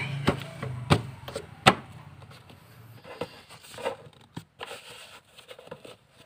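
Hands working car interior trim and floor carpet: three sharp clicks of plastic fittings in the first two seconds over a low hum that fades, then soft rustling of carpet and small knocks.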